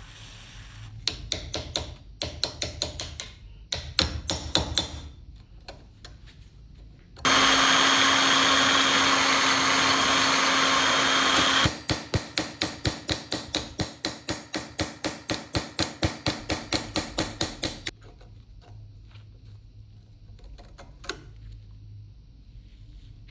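Hammer striking metal in quick runs of taps, about five a second, with a power tool running steadily for about four seconds in the middle.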